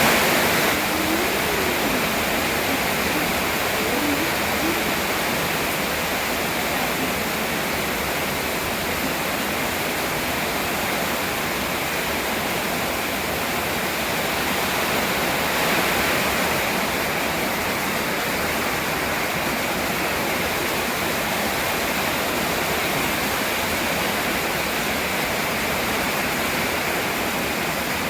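Heavy rain and storm wind making a steady, even rushing noise.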